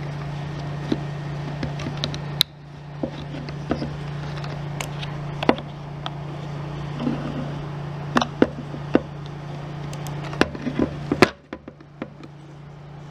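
Scattered sharp clicks and taps of hard plastic being handled: a handheld mini sewing machine being threaded, its housing opened and closed, and fabric fed under the needle. The louder clicks bunch together in the last few seconds. A steady low hum runs beneath and drops abruptly about two and a half seconds in and again near the end.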